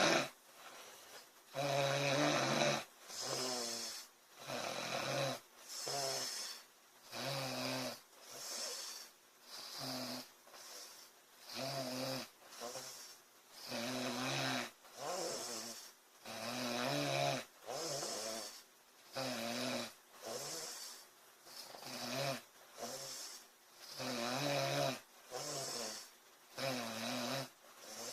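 A sleeping woman snoring steadily, a short rattling snore about once a second.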